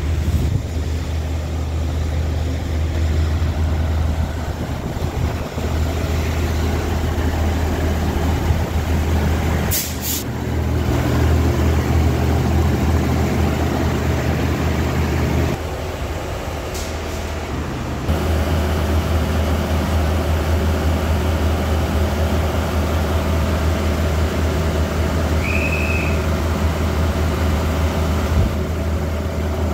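Inside a 2800 Class diesel multiple unit on the move: its underfloor diesel engine running with a steady low drone over rail and running noise. A short hiss of air comes about ten seconds in, the engine note drops for a couple of seconds around sixteen seconds, and a short high-pitched tone sounds near twenty-six seconds.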